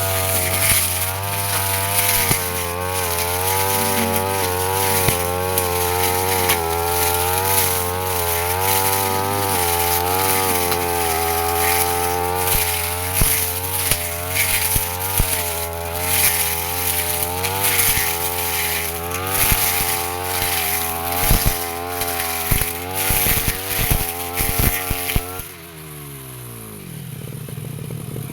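Brush cutter engine running at high revs, its pitch dipping and recovering as the blade cuts through weeds and brush, with sharp ticks of debris striking the blade guard. Near the end the throttle is released and the engine winds down to idle.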